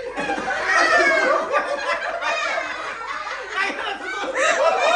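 A group of people laughing together, several voices overlapping with high-pitched giggles and chuckles.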